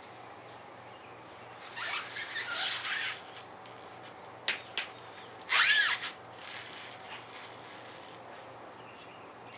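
A water-filled car tire on a steel wheel being shifted and tipped up on a concrete floor: rubber scraping about two seconds in, two light knocks, then a short, louder squeal near the middle.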